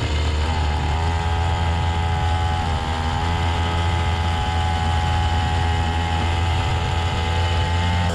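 Small 50 cc quad bike engine running under way, its pitch rising briefly in the first second and then holding steady.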